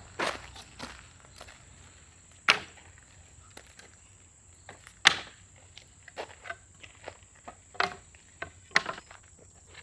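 Scrap wood burning in a fire pit, crackling with irregular sharp pops; one loud pop comes about two and a half seconds in and another about halfway through.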